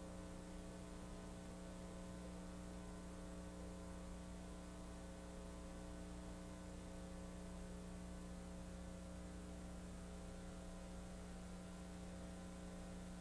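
Steady low electrical hum with many faint overtones over light hiss, unchanging throughout.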